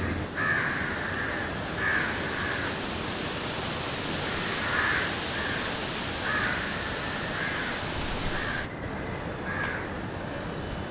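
Crows cawing again and again, short calls spaced irregularly, over a steady hiss of background noise.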